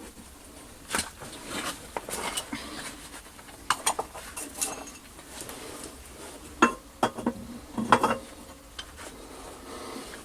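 Metal pieces being handled and set down: irregular clinks and knocks, with a few sharper knocks in the middle of the stretch.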